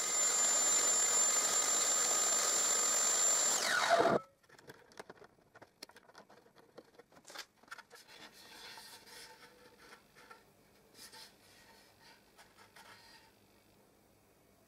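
Table saw running with a high steady whine while a box lid on a crosscut sled is passed over the blade, cutting a hinge mortise. About four seconds in the saw winds down, its whine falling fast, and the sound stops; after that there are only soft knocks and rubs of the wooden lid being handled.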